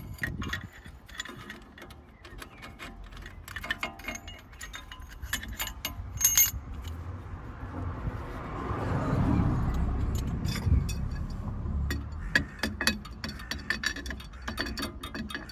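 Metal tools and brake parts clinking and clicking as they are handled during brake work. A low rumble swells and fades from about eight to twelve seconds in.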